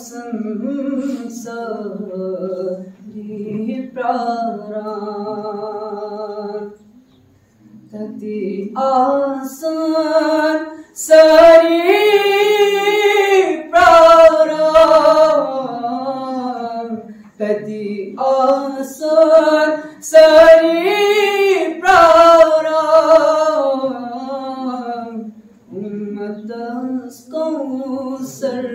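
A man singing a naat, an Islamic devotional poem, unaccompanied into a microphone, with long held notes that waver and bend. He pauses briefly about seven seconds in, and his voice rises louder in the middle passages.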